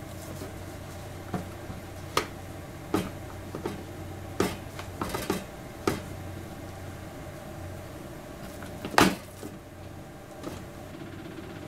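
Scattered light knocks and clicks of kitchen utensils and containers on a cutting board while chicken breast is coated in flour, with a sharper clatter about nine seconds in. A low steady hum runs underneath.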